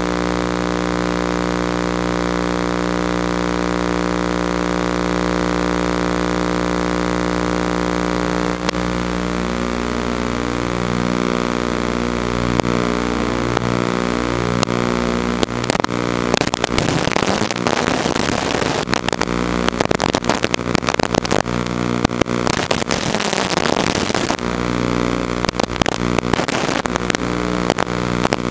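FPV quadcopter's brushless motors: a steady, many-toned hum at first, then a whine that shifts in pitch from about eight seconds in as the quad flies, with stretches of harsh hiss in the second half.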